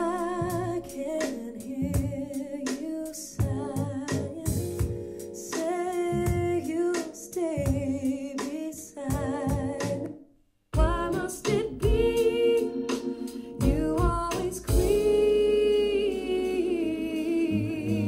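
A pop song with a singing voice over instruments, played back through a JBL Bluetooth speaker. The music cuts out for a split second a little past halfway, then resumes.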